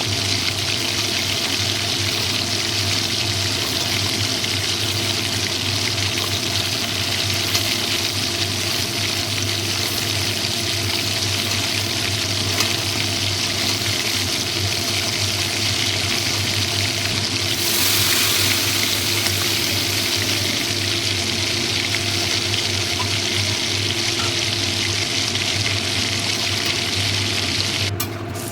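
Food frying in hot oil in a pan: a steady sizzle over a low hum, swelling louder for a couple of seconds about two-thirds of the way through.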